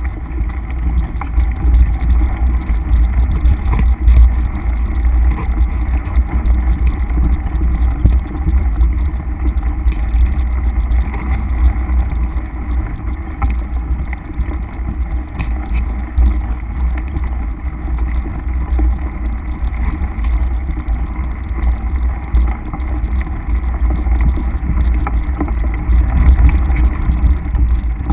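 Mountain bike ridden along a dirt forest singletrack, heard from a camera mounted on the bike or rider: a steady, heavy wind rumble on the microphone, with tyre noise on dirt and leaves and small knocks and rattles from the bike over bumps.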